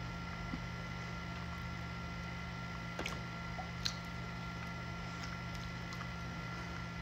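Eating sounds: a few faint squishes and small clicks as pieces of lechon (roast pork) are picked apart by hand and chewed. Under them runs a steady low hum with a faint high whine.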